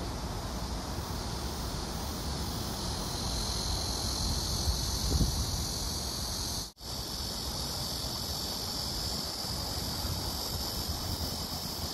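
Outdoor ambience: wind rumbling on the microphone under a steady high-pitched hiss that grows stronger a few seconds in. There is a soft low bump about five seconds in, and the sound cuts out for an instant about seven seconds in.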